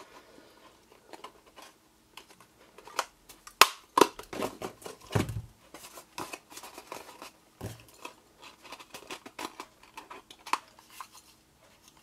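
Handheld hole punch clicking through folded cardstock, with the card box rustling as it is turned and handled. The sharpest clicks come about four seconds in, followed by a dull knock.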